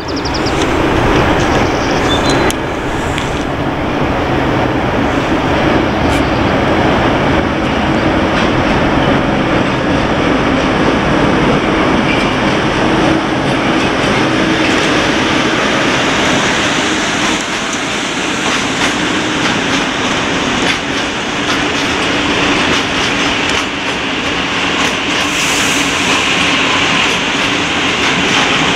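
Freight train rolling past close by: a locomotive's steady engine hum, with a long line of hopper wagons rumbling and clattering over the rail joints.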